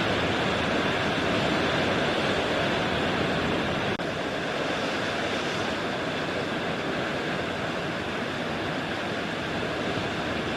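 Ocean surf washing on a beach in a steady, continuous rush, with a brief dropout about four seconds in.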